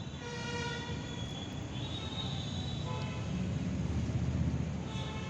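Outdoor city ambience: a steady low rumble of traffic, swelling a little near the end, with faint thin high tones over it.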